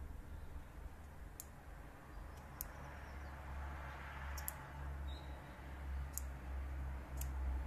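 Faint, sharp clicks, about five of them spaced a second or so apart, over a low steady rumble.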